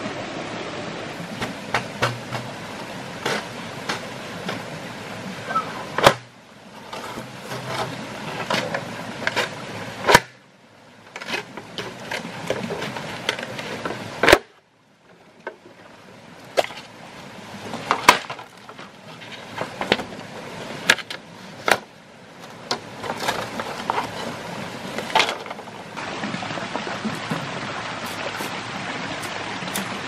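Green bamboo poles knocking and clattering against each other and on stones as they are handled, with sharp hollow knocks scattered through, over the steady rush of a rocky forest stream.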